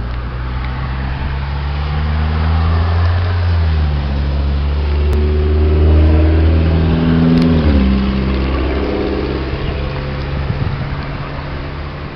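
A motor vehicle driving past on the road: a low engine hum swells to its loudest about halfway through, then fades, its pitch dropping about two-thirds of the way through.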